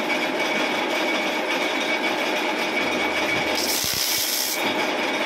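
Metal lathe running steadily with a thin whine, turning a clutch flywheel. Just under four seconds in, sandpaper pressed by hand against the spinning friction face gives a harsh hiss for about a second. This is the smoothing stage after the face has been skimmed.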